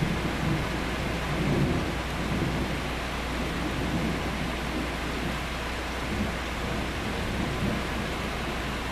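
Thunder rumbling low under steady rain, swelling most in the first couple of seconds and again more faintly later on.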